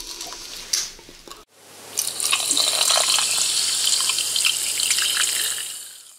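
Brief eating sounds, then the channel intro's sound effect: a loud, steady hiss that swells in about half a second after a sudden cut, holds, and fades out near the end.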